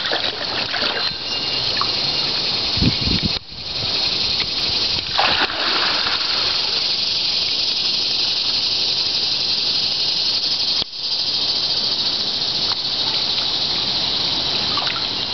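Pool water splashing and sloshing as a Labrador retriever wades and paddles through it, over a steady rushing water hiss. The sound breaks off for an instant twice.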